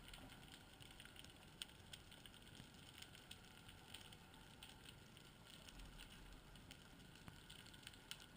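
Near silence: a faint steady hiss with scattered faint clicks.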